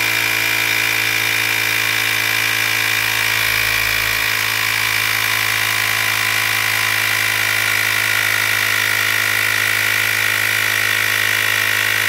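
Handheld cordless electric tire inflator's compressor running steadily as it pumps up a scooter tire, its pitch falling slightly as the pressure climbs from about 18 toward 34 psi.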